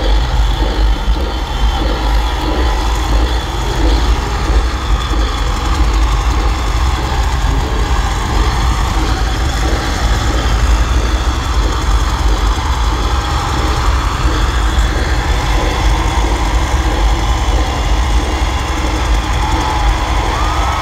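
Loud, steady deep rumble filling a concert arena as the show opens, with the crowd's din over it and a couple of faint whistles near the end.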